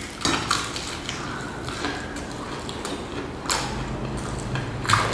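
Eating sounds from people chewing fried chicken: irregular wet smacks, clicks and crunches, with louder ones just after the start and near the end.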